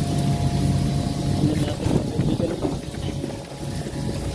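Steady hum of the fishing boat's engine and machinery, with a run of irregular knocks and clatter from work on deck about two seconds in.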